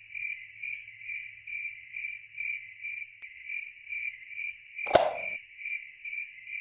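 A cricket chirping steadily, a high chirp repeated about twice a second. About five seconds in, a single short sharp knock.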